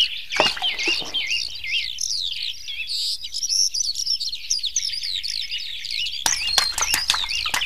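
Birds chirping: many short rising and falling calls overlapping. About six seconds in, a run of sharp clicks joins them.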